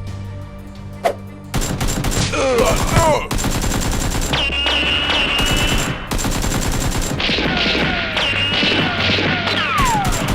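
Rapid automatic gunfire, a dense run of shots starting about a second and a half in and continuing, with falling whistle-like tones at times, over background music.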